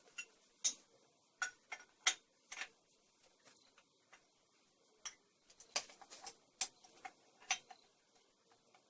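Light metallic clicks and taps, scattered and irregular, from the parts of a moped's rear shock absorber and a homemade pipe tool being handled while the shock is held pressed down. There are several clicks at first, a quiet pause of about two seconds, then a tighter run of clicks.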